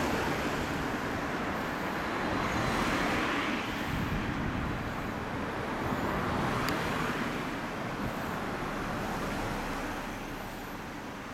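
Suzuki GSX1100S Katana's air-cooled inline-four idling through a hand-bent steel 4-into-1 exhaust with a straight-through silencer: a steady running sound that swells a little twice.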